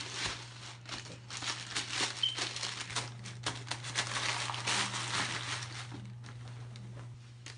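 Tissue paper crinkling and rustling in quick, irregular bursts as a pair of shoes is wrapped and packed back into its box. The crinkling is busiest for about the first six seconds and then dies down.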